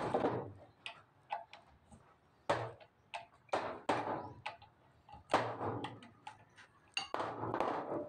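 Irregular metal clicks and clatter of a ratchet wrench and hand tools working the fittings of a disassembled Komatsu PC50MR-2 hydraulic control valve block, with a few louder, longer clatters between the sharp clicks.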